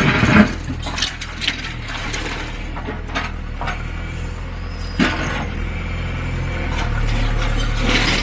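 John Deere 410 backhoe engine running steadily while the building it is tearing down cracks and breaks, with sharp knocks and glass-like clinks of falling debris; the engine grows a little louder near the end.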